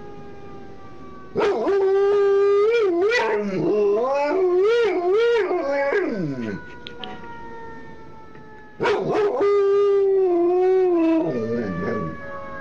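Dog howling along with a siren in two long bouts, each starting on a held note, then wavering up and down and sliding down at the end. Underneath, a fainter siren tone falls slowly in pitch.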